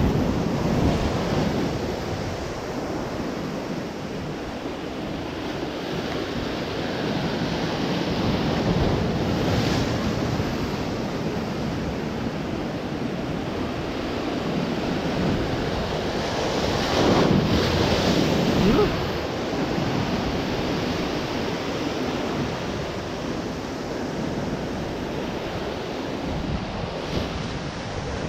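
Sea surf washing and breaking against shore rocks, with wind buffeting the microphone. The rushing swells and falls, with one louder surge of surf about two-thirds of the way through.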